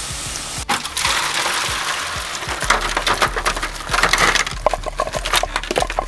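Hard shells of boiled crawfish clattering and crackling against each other as they are scooped out of the pot. The clicks come thicker from about three seconds in.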